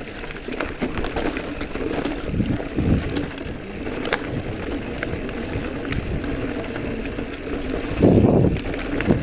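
Giant Trance E+ Pro 2 electric mountain bike riding along dirt singletrack: a steady rolling rumble of tyres on dirt and leaves, with the bike clicking and rattling over bumps and a louder rush about eight seconds in.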